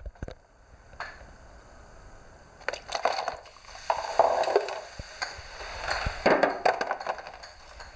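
A Rube Goldberg chain-reaction machine of household objects running: irregular knocks, clicks and clatter as small parts fall and strike each other and the tabletop, with louder noisy bursts about three, four and six seconds in.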